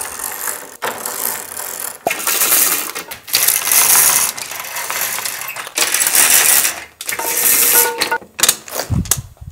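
Window blinds being pulled up by their cords, with the slats and mechanism rattling in about five long pulls separated by short pauses. A low thud comes near the end.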